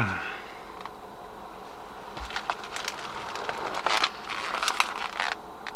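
Handling noise: scattered light clicks and rustles, busiest in the middle, over a steady low hiss.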